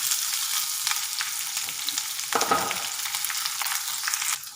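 Sliced onion frying in hot oil in a kadai: a steady sizzle with small crackles, and one knock about halfway through. The sizzle cuts off abruptly near the end.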